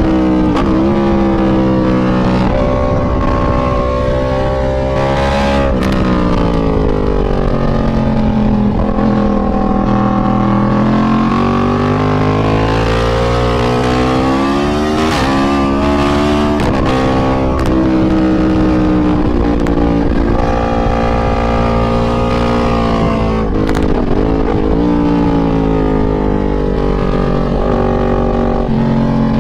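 Yamaha MT-10's crossplane inline-four engine at full speed on track, heard from on board: its pitch climbs under hard acceleration, drops sharply at each gearchange and falls away as the bike slows for corners, over wind rush.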